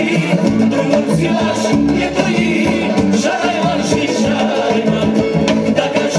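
Romani (țigănească) dance music played loud over stage loudspeakers, with a fast steady beat and a singing voice.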